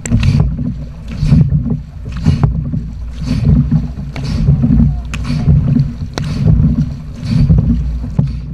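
Dragon boat crew paddling in a steady stroke rhythm, each stroke bringing a splashing whoosh of water about once a second, over a constant low rumble of water and wind on the boat-mounted microphone, with a few sharp clicks.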